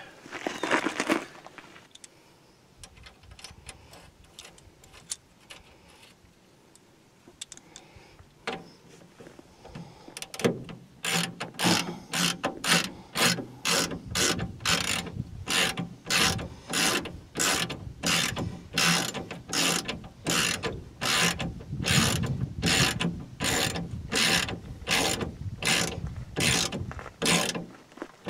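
Ratchet wrench clicking in steady back-and-forth strokes, about two a second, from about ten seconds in, as a nut is run down; before that, a brief clatter at the start and a few scattered clicks.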